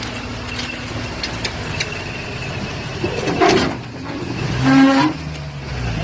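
Toyota pickup rock crawler's engine running at low revs as it crawls over the tyre obstacles, with a loud brief noise about three and a half seconds in and a short held tone about a second later.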